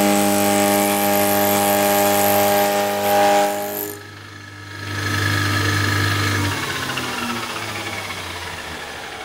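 Milling machine cutting cold rolled steel with a homemade cutter fitted with two APMT carbide inserts: a loud, steady, many-toned whine. It cuts off sharply about four seconds in; the machine then runs on and slowly winds down, its pitch falling.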